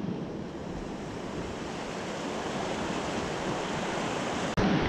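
Ocean surf washing steadily, a even rush of water noise; near the end it jumps abruptly louder and deeper.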